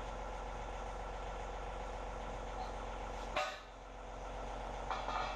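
John Deere tractor engine idling steadily. A sharp metallic clank comes about three and a half seconds in, and a couple of shorter knocks near the end, as the steel pallet forks are set down on the concrete floor.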